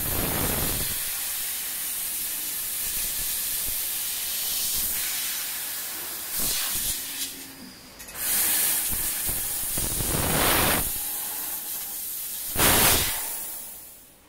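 Fiber laser profile-cutting machine cutting an aluminium profile: a steady hiss of gas from the cutting head, rising to louder gusts four times, then falling away near the end.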